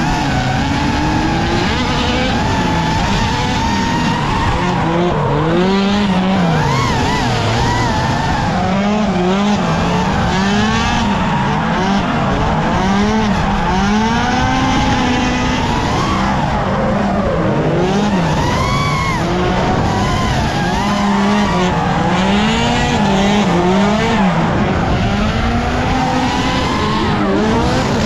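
S14 drift car's turbocharged Toyota 3S-GE Beams four-cylinder revving up and down over and over as the car is held in a drift, with tyres squealing and skidding.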